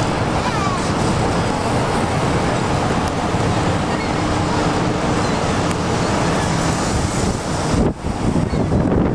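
Loud, steady rushing roar of the Horseshoe Falls at Niagara, with wind buffeting the microphone.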